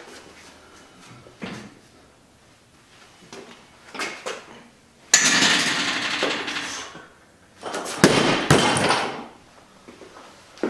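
A barbell loaded to about 375 lb, dropped from the shoulders onto foam drop pads (Pound Pads): two sharp thuds about half a second apart, about eight seconds in, the foam taking up the impact. They are preceded by a loud noisy sound lasting about two seconds as the bar is hauled up.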